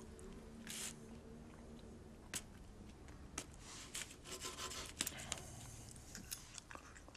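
Faint rustling with scattered small clicks and scrapes, thickest in the middle, over quiet room tone.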